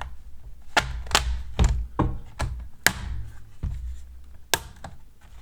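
Plastic snap-fit clips of an HP Essentials 14 laptop's bottom cover clicking and popping loose as the cover is pried off by hand. A string of sharp, separate clicks and taps, about eight of them, over low handling rumble.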